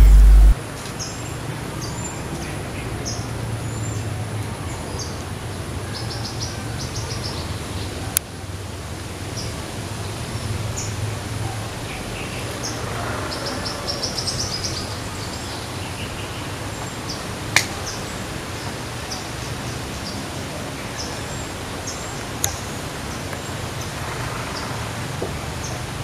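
Female flowerpecker giving short, high chirps at irregular intervals, with a couple of quick trilled runs, over a steady low background hum. A few sharp clicks stand out.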